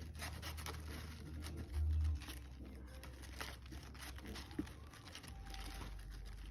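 Trading cards and foil booster-pack wrappers being handled and shuffled, a soft rustling and crinkling with small clicks, over a low steady hum, with a short low thump about two seconds in.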